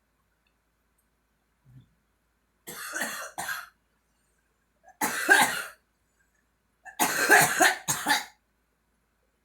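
A girl coughing in three bouts a few seconds apart: a pair of coughs, a single cough, then another pair.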